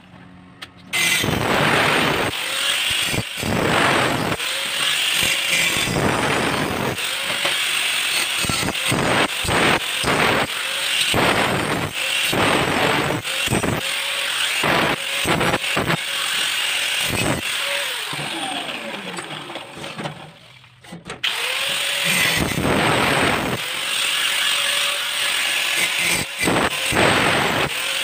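Electric angle grinder running against square steel tubing, its loud rough grinding noise rising and falling over a steady motor whine. It starts about a second in, stops for a moment about two-thirds of the way through, and starts again.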